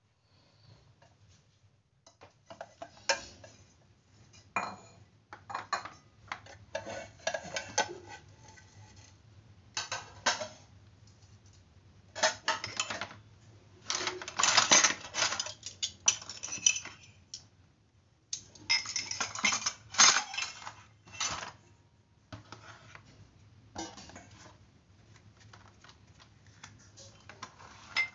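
Dishes being handled: a stainless steel bowl, plastic containers and cutlery clinking and knocking together as they are taken out of a plastic washing basin. The clatter comes in irregular bursts, loudest a little past the middle and again about two-thirds of the way through, over a faint steady low hum.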